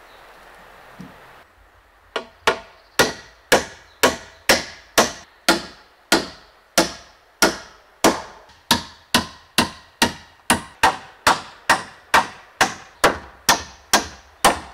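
A hammer striking nails into the timber roof rafters: about thirty sharp blows, each with a short ringing decay. They begin about two seconds in, about two a second, and speed up toward the end.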